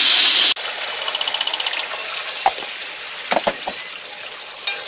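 Blended chili spice paste sizzling loudly and steadily in hot oil in an aluminium wok as it is stirred with a wooden spatula: the start of frying the ground paste.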